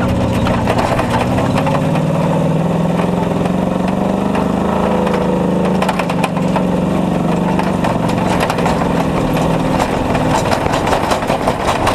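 A 4x4 tow truck's engine working hard under load as it climbs a sandy hill with a truck on the hook. Its pitch rises a little at the start, then holds steady. In the second half there are repeated knocks and rattles as the truck bunny hops in the sand.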